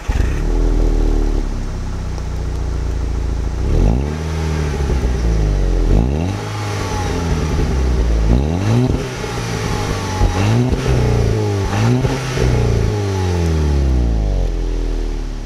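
VW Golf 6 GTI's 2.0-litre turbocharged four-cylinder heard at its twin exhausts, idling steadily for a few seconds and then revved in place several times, about one quick rev every two seconds.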